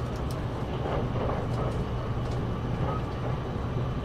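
Steady low vehicle rumble with faint, indistinct voices murmuring in the background.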